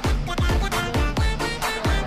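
Backing pop music with a steady beat of deep kick drums, about two a second.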